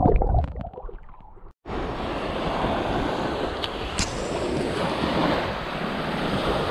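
Muffled water sloshing heard underwater for about the first second and a half, then after a brief cut-out, ocean surf breaking and washing up the beach, with wind buffeting the microphone and a single sharp click a few seconds in.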